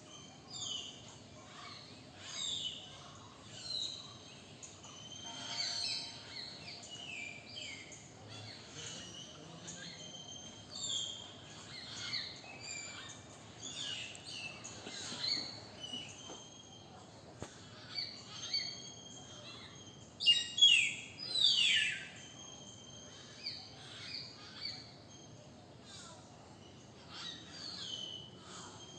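Several wild birds singing and calling at once, a dense mix of overlapping chirps and short whistles over faint background noise. The loudest calls, a few quick downward-sweeping notes, come about twenty seconds in.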